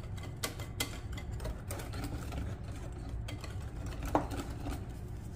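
Wire whisk beating thick cake batter by hand in a glass bowl, with irregular clicks and taps of the wires against the glass and a short squeak about four seconds in.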